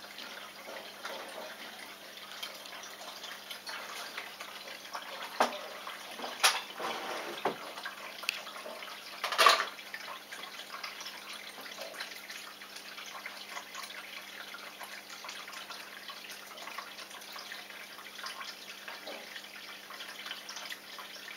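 Steady trickle and splash of water running in a turtle aquarium, over a faint steady hum. A few sharp knocks come about a quarter to halfway through, the loudest near the middle.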